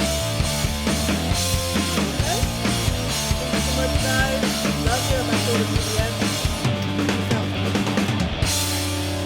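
Rock music with a fast, driving drum beat; near the end the drums stop and a guitar chord is left ringing.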